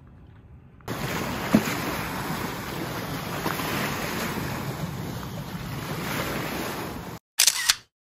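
Lake waves washing and splashing against rocks at the shoreline, starting suddenly about a second in and running steadily until it cuts off shortly before the end. Then a brief, loud camera-shutter click.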